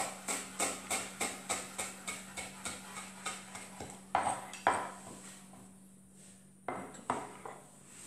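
Kitchen knife chopping parsley on a wooden cutting board: quick, even chops about three a second that grow fainter. After about four seconds they give way to a few louder, separate knocks on the board.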